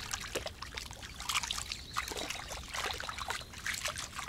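Small irregular splashes and trickles of lake water as a fish is released by hand at the water's edge.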